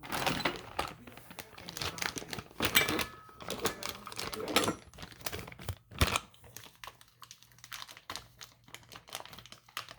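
Rummaging through faucet parts and plastic packaging: crinkling rustles with small clicks and clatters, busiest in the first six seconds, then thinning to sparse light ticks.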